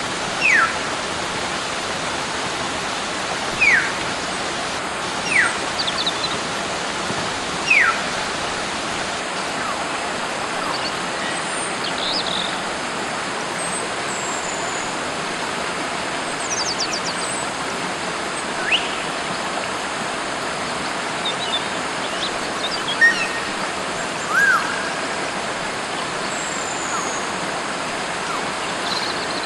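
Wild hill myna giving loud, sharp whistles that fall in pitch, four within the first eight seconds and more later, over the steady rush of a forest stream. Faint high chirps from other birds are scattered throughout.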